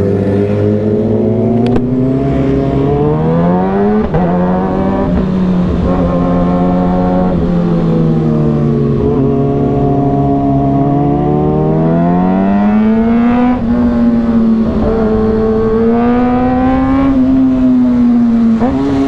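Motorcycle engine pulling under way: its pitch climbs over the first few seconds, sags slowly through the middle, then rises again about two-thirds of the way in and holds at a higher, steady pitch near the end.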